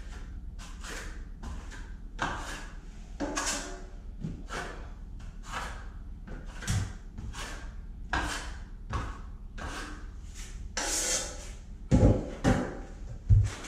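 Steel drywall trowel scraping setting-type joint compound along a wall joint in short repeated strokes, about two a second. A few louder knocks come near the end.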